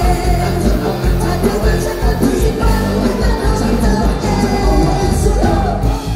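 Live band music played loud over a stage PA: a steady drum and bass beat with a man singing into a microphone.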